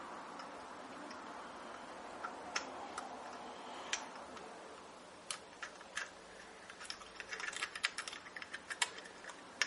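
Sharp metallic clicks and taps of internal snap ring pliers working inside the boost chamber of a Fox DHX rear shock to free the snap ring. A few scattered clicks at first, then a quick run of many clicks in the second half.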